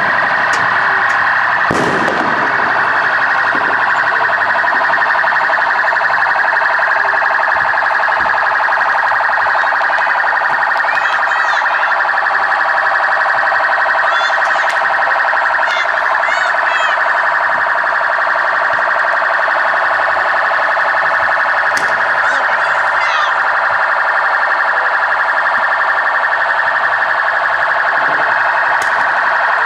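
A loud, steady alarm tone that holds unbroken throughout. A sharp bang comes about two seconds in, and a few fainter clicks and short chirps follow later.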